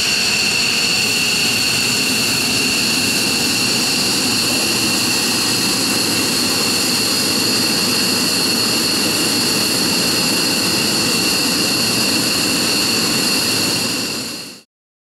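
F-15J Eagle fighter's jet engines idling on the ramp: a steady high-pitched turbine whine over a rushing noise, fading out near the end.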